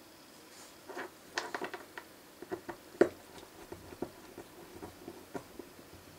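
Irregular light clicks and small scrapes of a precision screwdriver driving a tiny screw into a small model part on a cutting mat, starting about a second in. The screw turns in easily.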